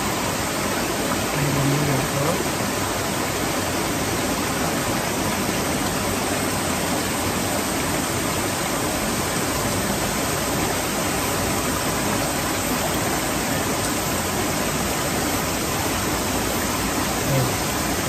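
Mountain stream water rushing steadily over rocks, a constant even hiss.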